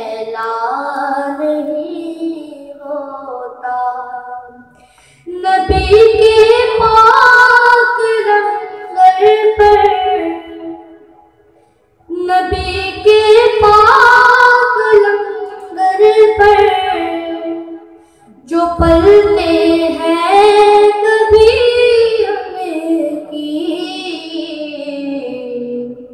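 A child singing an Urdu naat in four long, drawn-out phrases with short breaks between them.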